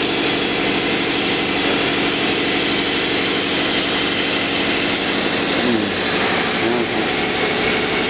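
Steady loud whir of a laser cutting machine and its running equipment: an even hiss over a low, steady hum.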